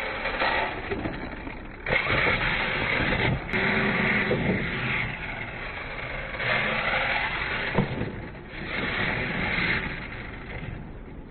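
Radio-controlled monster truck running across concrete in several throttle surges, its motor and drivetrain whining up and down. There is a single sharp thump about eight seconds in as it lands a jump.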